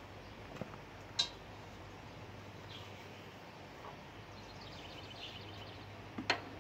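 Quiet pause with the tractor engine off: a few faint clicks and clinks, about a second in and twice more near the end, as a starter rope is wound around the engine's pulley for a rope start. Faint bird chirps sound now and then.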